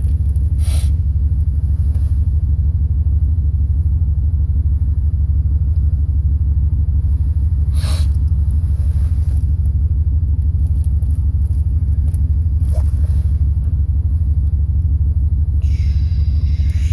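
A steady, loud low rumble throughout, with a few sharp clicks: about a second in, around eight seconds and near thirteen seconds. The clicks are small metal lock parts being handled while a lock cylinder is re-pinned.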